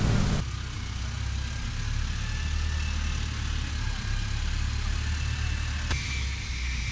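Diesel engine of a Caterpillar telehandler running steadily as a low rumble while it carries a load, with a brief click about six seconds in.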